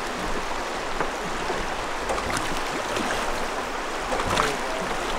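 Fast river water rushing around a drift boat, a steady hiss of riffles, with a few faint knocks.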